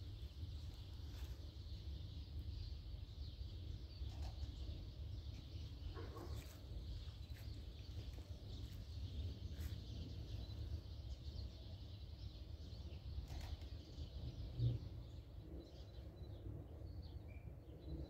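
Outdoor ambience: a steady low rumble with faint bird chirps that grow busier near the end, and one brief low thump about fifteen seconds in.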